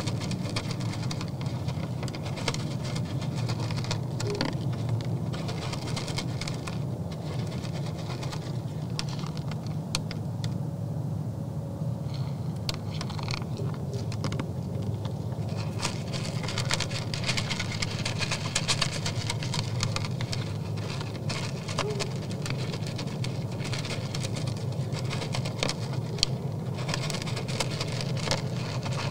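Whitetail bucks feeding from a pan close to the microphone: a steady run of small crunches and clicks as they chew and nose through the feed, over a steady low hum.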